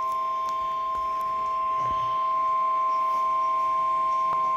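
Weather radio warning alarm tone: a steady high single tone held without change, with a fainter lower tone beneath it. It signals that a warning broadcast is about to follow.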